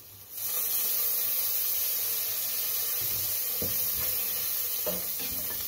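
Vinegar hitting hot oil with fried onion and garlic in a frying pan: a sudden loud sizzling hiss that slowly eases. A wooden spoon knocks against the pan a few times as it is stirred.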